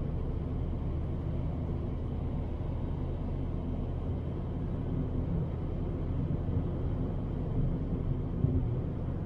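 Fiat Bravo 1.6 driven at a steady speed, heard from inside the cabin: an even low engine drone under the rumble of the tyres on a snow-covered road. There is one short bump near the end.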